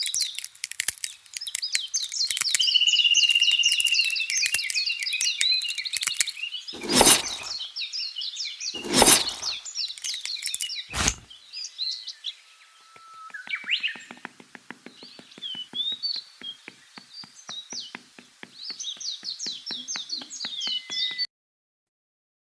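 Many small birds chirping and trilling busily, with three sharp knocks about two seconds apart midway through. The sound cuts off suddenly about a second before the end.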